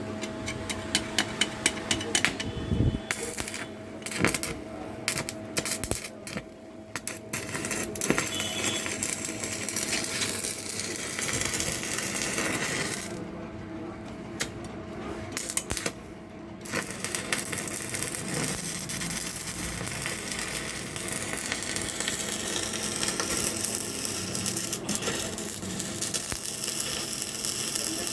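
Stick (arc) welding with a 250 A welding machine: the arc crackles and spits in irregular clicks with short breaks as it is struck and restarted, then settles into a steady sizzle for the last ten seconds or so, over a faint steady hum.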